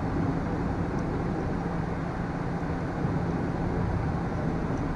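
Steady background noise with a faint low hum, unchanging throughout and with no distinct events.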